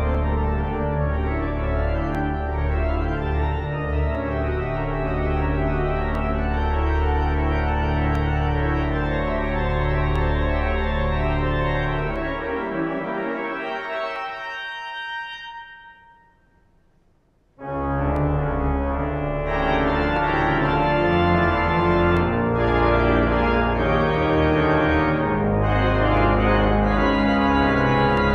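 Church organ playing full sustained chords over a deep pedal bass. A little under halfway through, the bass drops out and the chord dies away in the room's reverberation to near silence. After a short pause the organ comes back in suddenly with full chords.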